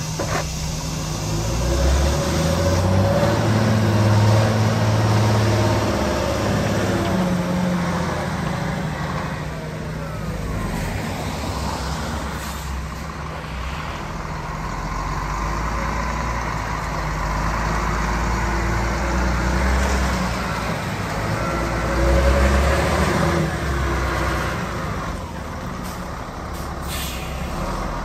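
2002 Volvo A25D articulated dump truck's six-cylinder diesel engine running as the truck drives and turns, the engine note rising and falling as it pulls away and slows. Short hisses of air from the air brakes at the start and near the end.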